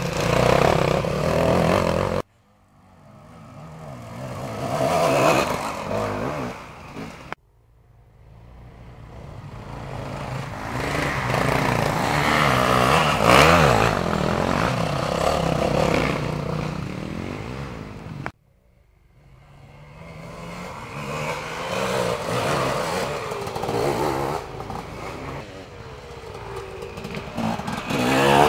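Off-road dirt bike engines revving as riders pass one after another on a forest enduro trail. Each pass builds as a bike approaches, peaks with the revs rising and falling, then fades. Three abrupt cuts break up the passes.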